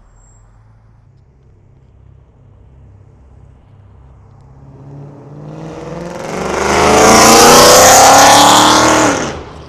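Lexus RC F's V8 with PPE unequal-length headers runs quietly, then accelerates hard, climbing in pitch and getting very loud. It peaks about seven seconds in and cuts off abruptly just before the end. The exhaust is loud and raspy.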